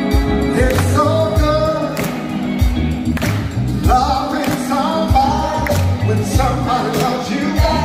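Background music: a song with a sung vocal line over a heavy bass and drum beat.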